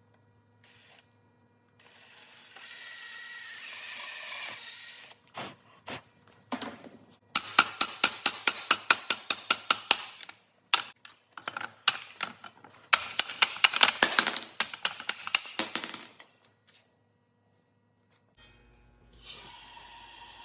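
Workshop tool work: a short steady whirr, then two runs of rapid sharp knocks, about five a second, each lasting a few seconds. A steady hiss starts near the end.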